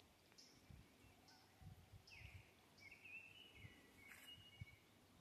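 Faint birdsong: short high chirps repeating about once a second, with a lower falling call a little after two seconds and a wavering call after three seconds. Soft low thuds underneath.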